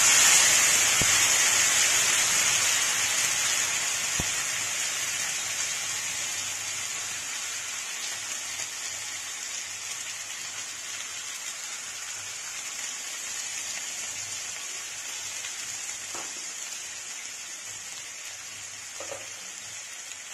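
Thin, watery masala paste poured into hot coconut oil with curry leaves on a tawa, sizzling hard: loudest in the first second, then slowly dying down as the liquid cooks in.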